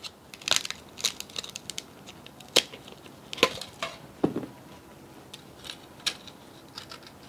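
Irregular clicks, snaps and small cracks as a thin pry tool works the cracked screen of a water-damaged smartphone away from its frame, with a few sharper snaps among fainter scraping ticks.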